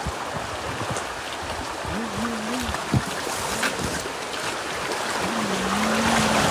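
River water rushing steadily, growing a little louder near the end.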